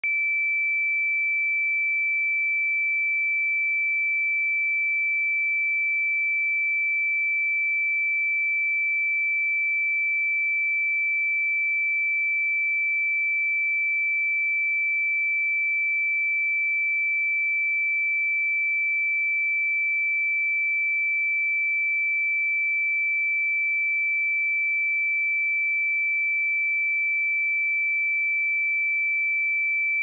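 A pure 2324 Hz sine-wave test tone, a single steady high-pitched note held at constant level.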